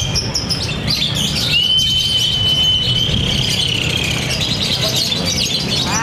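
Lovebird song: rapid high chirping, with one long steady high note that begins about a second and a half in and sags slightly as it ends. A low background rumble runs underneath.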